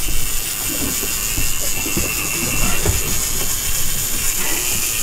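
Big-game lever-drag reel paying out line in a steady high whine as a hooked bluefin tuna runs against the drag, over a low rumble of wind and boat noise.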